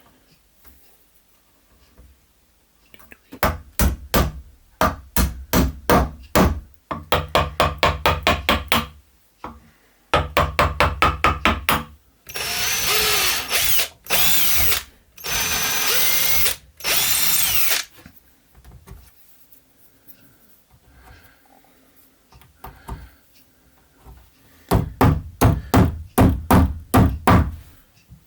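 Power drill working wood: several trains of short trigger bursts, then two longer continuous runs of about two and a half seconds each, then more short bursts near the end.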